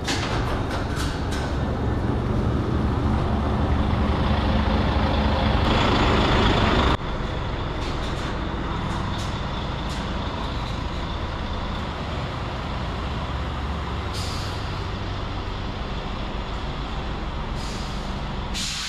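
A semi truck's diesel engine idling steadily; it drops suddenly in level about seven seconds in. There are short hisses of released air twice in the second half.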